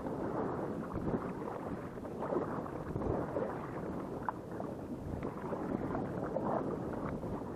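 Wind buffeting a small camera microphone over the water, with steady sloshing and splashing of water around a kayak as it is paddled.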